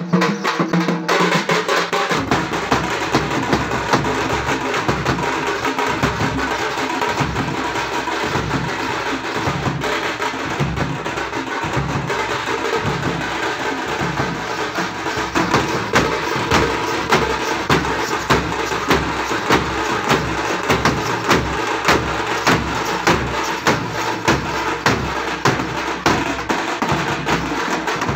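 Tamil thappu (parai) frame drums beaten with sticks in a fast, dense rhythm, over regular low beats from large stick-played bass drums.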